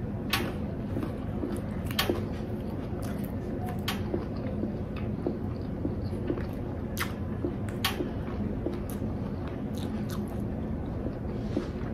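Lettuce leaves crackling and snapping in the hands as a lettuce wrap is pressed together and rearranged: sharp, crisp clicks, irregular and about one a second, over a low steady background.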